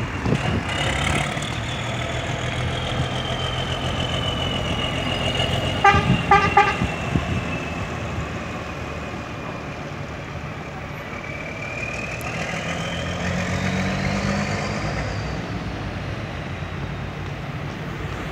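Volvo Steyr SL12 city bus pulling away with its diesel engine running and a high drivetrain whine that slowly falls in pitch, then rises again about two-thirds of the way through. About six seconds in, a horn sounds three short toots.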